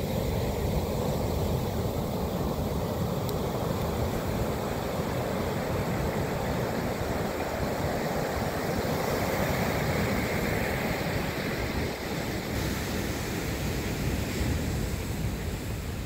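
Big ocean surf breaking and washing on the shore: a continuous rush of white water with no single crash standing out, and wind buffeting the microphone.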